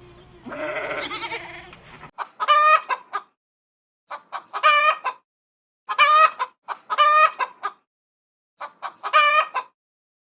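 A bleat with background noise, cut off about two seconds in. It is followed by a chicken calling five times, about one second per call, each call a pitched phrase with a short lead-in and a longer wavering note, with silent gaps between.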